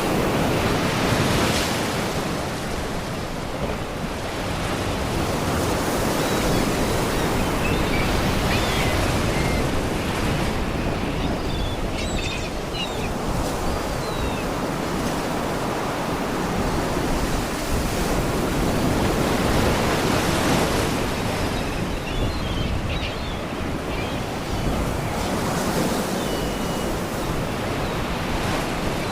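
Sea waves washing and breaking against rocks, a continuous surf that swells and eases in long surges. Faint seagull cries come through now and then.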